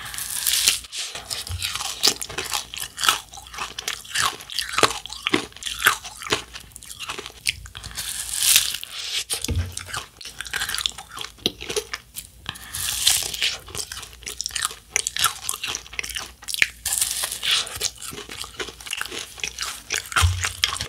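Close-up eating sounds: biting and crunchy chewing of sorbet in a black waffle cone topped with crunchy candy sprinkles. There are many small crackling crunches, with a few louder bites mixed in.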